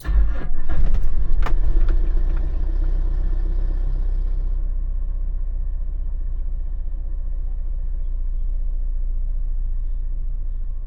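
A Toyota Kijang Kapsul LGX's 1.8-litre EFI petrol four-cylinder cranks and catches, runs loudly for about two seconds, then settles into a steady idle. Under the idle is a cricket-like chirp ('krik krik') that the owner hears every time the engine starts and cannot yet explain.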